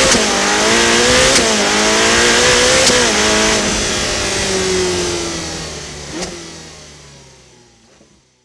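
A car engine accelerating hard through the gears. Its pitch climbs and drops back at each upshift, about every second and a half. Then the note sinks and fades away over the last few seconds.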